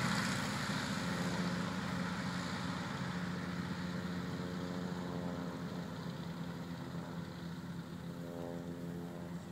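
Waco YKS-6 cabin biplane's Jacobs seven-cylinder radial engine droning as the plane climbs away after takeoff, steadily fading with distance.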